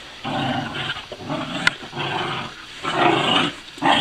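Dogs growling in a scuffle with a cat, in a string of short rough bursts about a second apart.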